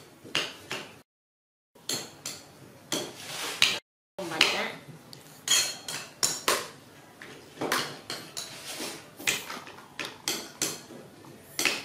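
Metal kitchen utensils clinking and knocking against dishes in quick, irregular strokes. The sound cuts out to silence twice for a moment within the first few seconds.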